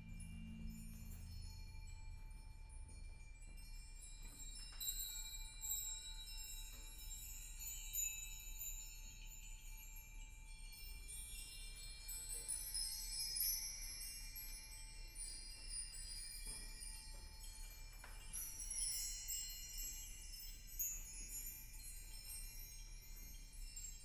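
Percussion ensemble playing a quiet, sparse texture of high, sustained metallic ringing, like chimes, with a few soft struck notes scattered through it. A low tone dies away in the first two seconds.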